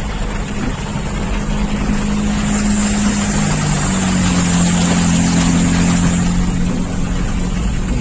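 Car driving through a flooded street in heavy rain, heard from inside the cabin: a steady engine hum under a wash of rain and tyre spray. The hum shifts pitch a few seconds in, and the splashing swells in the middle as a car ploughs through the floodwater alongside.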